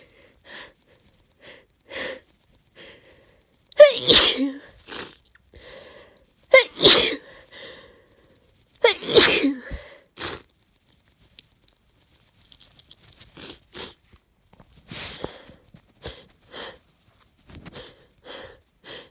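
A woman with a head cold sneezing hard three times, about every two and a half seconds, each sneeze after a short gasping inhale. After them come quieter wet, snotty sniffles and breaths.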